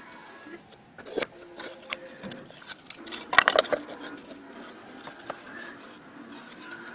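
Hands handling a small wooden speaker box: scattered knocks and clicks of wood and plastic, with a quick run of clicks about three and a half seconds in as a knob is pushed onto the control shaft.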